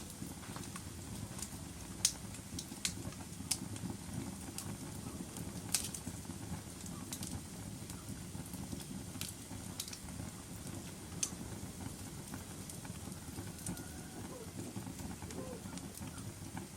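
Wood fire burning in a fireplace: a steady low rumble with sharp crackles and pops at irregular intervals, the loudest about 2 and 6 seconds in.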